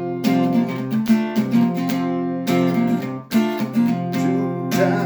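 Acoustic guitar strumming chords, with short moving notes between the strums.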